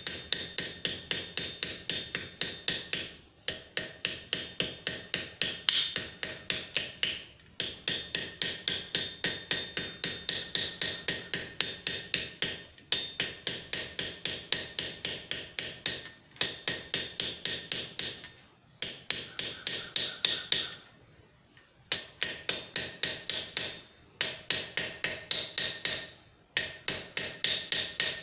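Small blacksmith's hammer tapping the neck of a .50 BMG brass cartridge case against the anvil horn to even it out, several light blows a second with a metallic ring. The blows come in runs of two or three seconds broken by short pauses.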